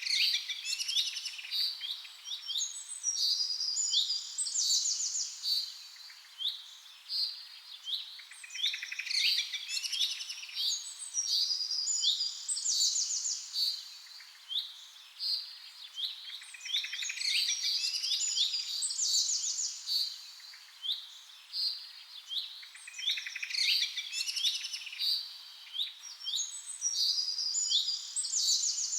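Songbirds chirping and trilling: quick sweeping chirps and rapid trills in phrases of a few seconds, repeating in nearly the same pattern about every seven seconds, as in a looped birdsong recording.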